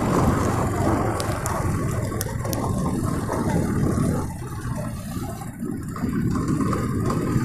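Motorcycle engine running at low speed along a street, with a steady low rumble of wind and road noise; it quietens briefly about halfway through.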